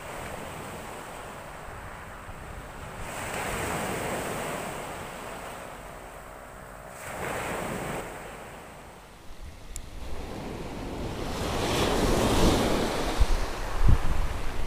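Open-sea waves breaking on the shore in repeated surges: one swells about three seconds in, another around seven seconds, and they build louder from about ten seconds on. Wind buffets the microphone near the end.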